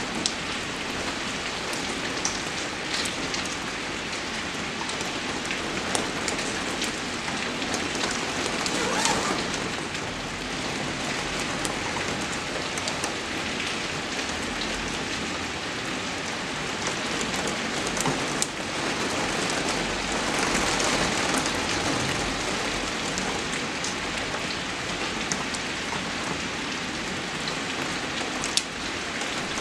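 Rain falling steadily, an even hiss of many drops, with a few sharper ticks from single drops standing out here and there.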